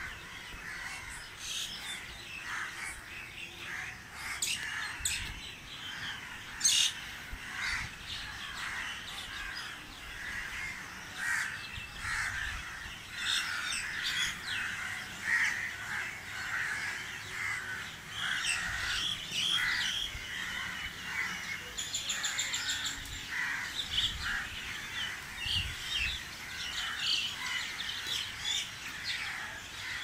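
Dawn chorus of many birds chirping and calling at once from trees, with harsh cawing calls among them. A fast, high, even trill is heard about two-thirds of the way through.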